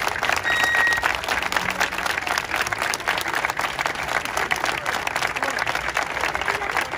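A crowd applauding: many hands clapping at once, a dense, steady patter. A short, high, steady tone sounds about half a second in.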